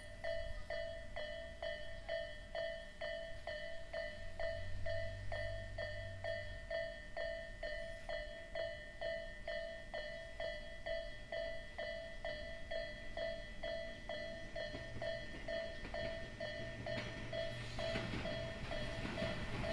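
Japanese railway level-crossing alarm of the Isesaki type, ringing steadily at about two strikes a second. An approaching train's noise grows under it near the end.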